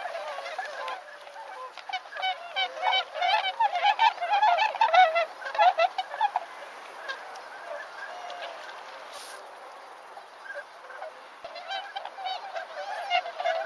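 A flock of whooper swans calling, many honking calls overlapping. The calls are busiest in the first half, thin to a few scattered calls in the middle, and pick up again near the end.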